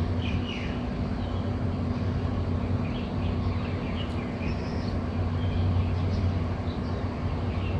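Steady low mechanical hum with a faint scattering of bird chirps.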